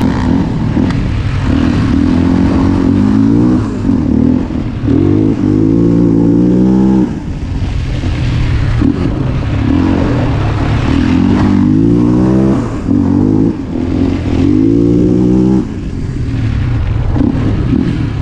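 Yamaha Raptor 700 sport quad's single-cylinder four-stroke engine pulling hard under acceleration. The revs climb and fall back several times as the throttle is worked.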